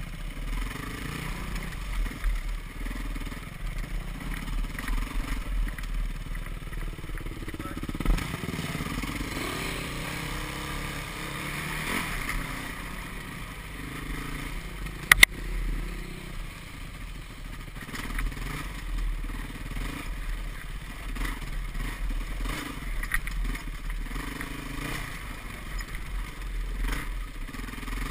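Yamaha WR450F's single-cylinder four-stroke engine running while the bike is ridden on a dirt trail, heard from a helmet camera, its pitch rising and falling with the throttle. There is a single sharp knock about fifteen seconds in.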